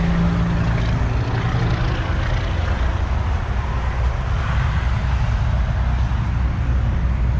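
Steady hum of a running Ruud Achiever heat pump's outdoor unit, its compressor and condenser fan running, with a low drone that holds even.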